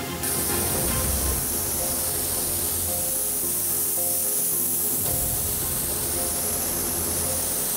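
Steady hiss of a compressed-air gravity-feed spray gun spraying paint, with background music playing over it.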